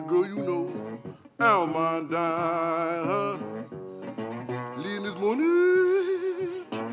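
Country blues played solo on a resonator guitar. Notes slide in pitch and are held with a wavering vibrato, with a long upward slide into a sustained note about five seconds in.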